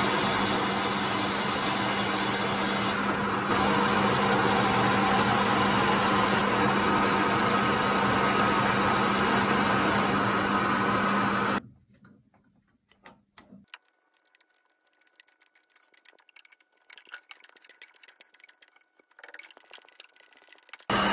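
Mini metal lathe running steadily with a strong, even hum, stopping abruptly about halfway through. Then only faint, scattered clicks and taps.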